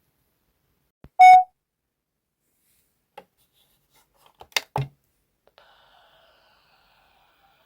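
A single loud, short electronic beep about a second in, typical of an appliance's power-on beep as the monitor is switched on. A cluster of short sharp sounds follows a little after four and a half seconds, then a faint fading tone.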